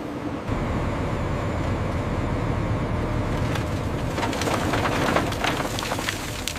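Low, steady rumble of heavy machinery that steps up about half a second in. From about halfway through, a quick irregular run of metallic clanks and rattles joins it.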